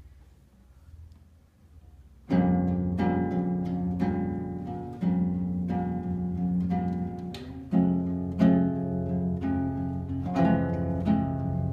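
Nylon-string classical guitar played fingerstyle, starting about two seconds in with plucked chords and notes that ring on, the introduction of a song.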